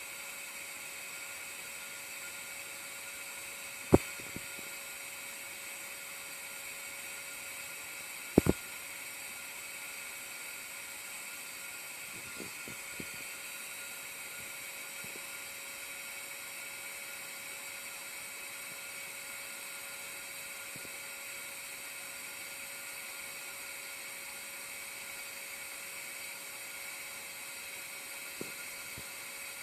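Honeybees humming steadily at a hive, with two sharp clicks, about four and eight seconds in.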